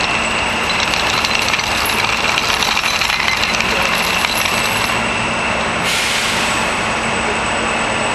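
Steady engine drone under a hiss, with a thin high whine held throughout; a brighter hiss joins about six seconds in.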